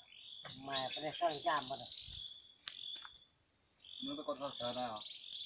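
People talking, over a steady high insect chirring with a rapid trill twice. A couple of sharp clicks fall in the quiet gap between the voices.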